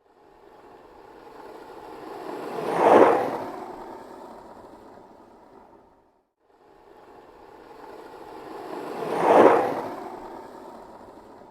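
Skateboard rolling past twice, its wheels rumbling on pavement as it comes in, peaks and fades away; there is a brief silent gap between the two passes.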